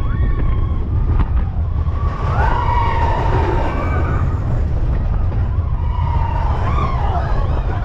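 Mine-train roller coaster running along its track, heard from aboard: a steady heavy rumble of the train and rushing air, with two stretches of high wavering squeals, about two seconds in and again near the end.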